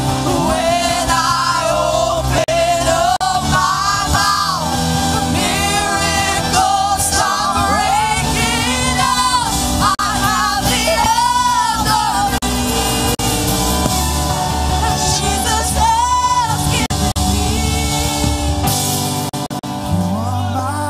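Live worship band and singers performing an upbeat praise song: lead and backing vocals over guitars, keyboard and a strong bass line.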